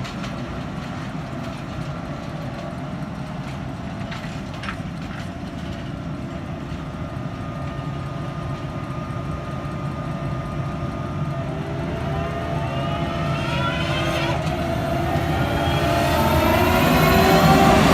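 A heavy vehicle engine running steadily, then rising in pitch and growing louder over the last six seconds or so as it speeds up.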